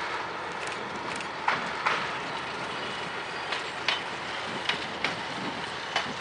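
Narrow-gauge railcar running past and away, a steady rumble with its wheels clicking over rail joints at irregular intervals.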